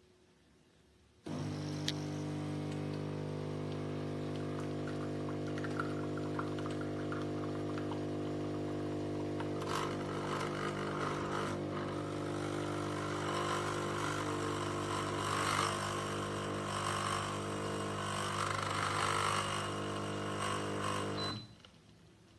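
Espresso machine's vibratory pump starts suddenly and buzzes steadily for about twenty seconds. About halfway through, hissing and spluttering join the buzz. It shuts off abruptly.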